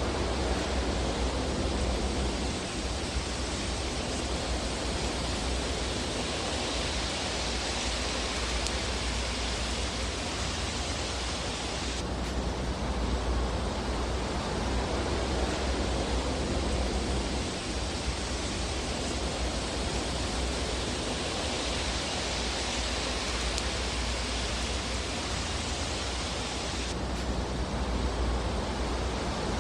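Fireplace fire ambience: a steady rushing hiss over a low rumble, with no distinct crackles or pops standing out.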